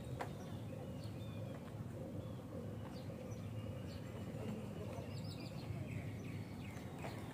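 Outdoor ambience: a steady low background hum with faint, scattered bird chirps and a couple of light clicks.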